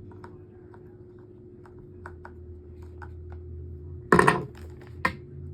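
Light, irregular clicks and taps of a small screw being driven into a table fan's plastic housing while the parts are handled, over a low steady hum. About four seconds in comes a loud clatter, followed by a single sharp knock a second later.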